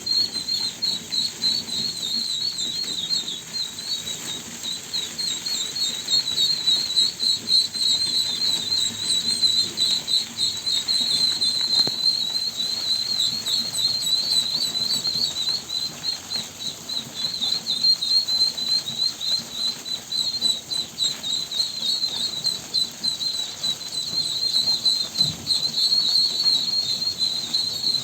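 Many ducklings peeping at once, a steady high-pitched chatter of short, overlapping chirps.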